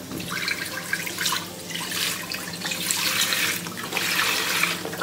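Chicken broth pouring from a tilted carton into a metal saucepan, splashing in uneven surges.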